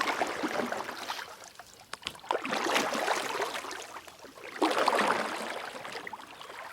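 Kayak paddle strokes in water, with a swell of splashing and swishing about every two and a half seconds.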